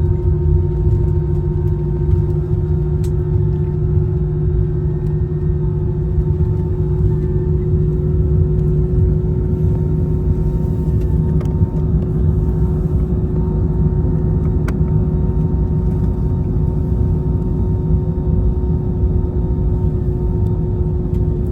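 Steady cabin noise inside an Airbus A321 on the ground before takeoff: a loud, even low rumble with a constant hum running through it.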